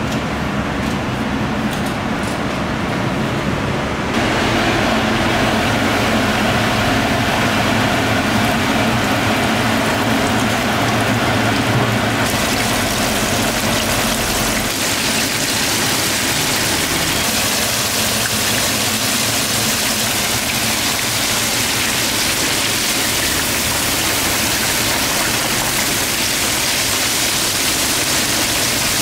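Flour-coated squid pieces deep-frying in a vat of hot oil: a steady, loud sizzle that fills out and grows brighter about twelve seconds in. It is preceded by a few softer seconds of gloved hands working squid in dry flour.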